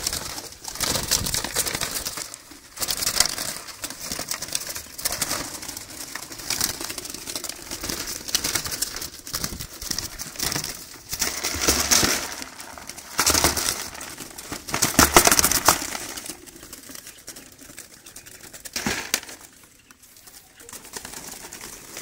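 A trapped dove flapping its wings against the wire mesh of a cage trap as it is caught by hand, with the wire rattling and rustling in irregular bursts.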